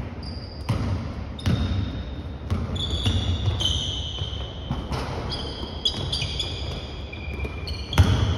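Basketball bouncing on a hardwood gym floor, irregular thuds that echo in the hall, the loudest near the end. From about three seconds in, sneakers squeak on the floor as players cut and jump.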